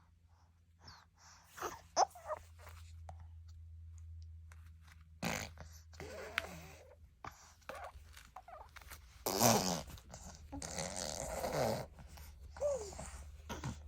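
A baby blowing raspberries and making wordless vocal noises: short squeaks and grunts, then longer sputtering, spitting lip buzzes, the loudest about nine to twelve seconds in.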